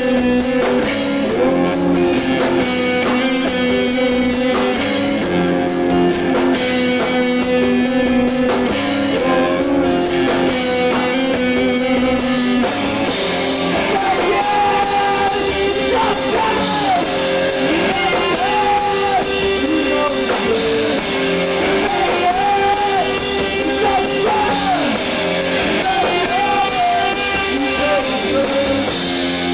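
Live emo band playing loud rock through a club PA: electric guitars holding sustained, droning chords over a drum kit. About halfway in, a wavering, sliding melody line joins on top.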